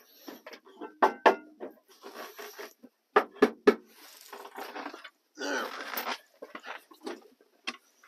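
A person climbing into a tractor cab: a few sharp knocks and clunks against the cab and step, with several scuffing, swishing stretches from clothing and snow being moved about. The engine is not running.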